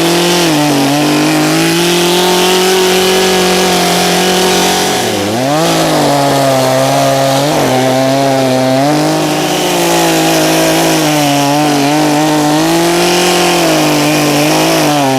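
Gas two-stroke chainsaw running at high speed while cutting the notch into a tree trunk. The engine pitch sags briefly about five seconds in and climbs back up.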